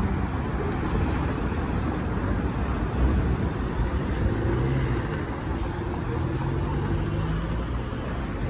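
City road traffic: car engines and tyres running past in a steady wash of noise, with a faint engine hum that rises and falls in the middle.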